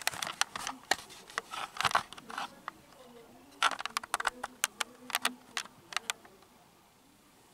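Scratchy rustling and clicks as a plush toy dog's fabric brushes and rubs against the camera microphone while it is handled. The noise comes in two spells, the second starting about three and a half seconds in and stopping about six seconds in.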